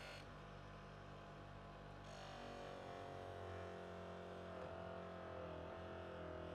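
Bench grinder motor running with a steady hum, and from about two seconds in a hiss as the kukri's steel blade is worked against the spinning grey wheel.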